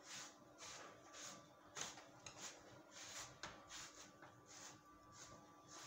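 A hand brush stroked through a rabbit's thick fur coat: faint, soft, scratchy strokes repeating about twice a second.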